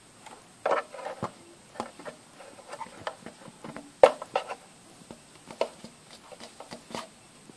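Irregular light taps and clicks of fingers handling and pressing on a subwoofer's cone, with the loudest tap about four seconds in.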